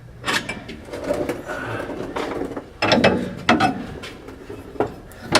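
Hand tools and metal parts clinking and rattling, with several sharp knocks, during work on a Model A Ford transmission installation.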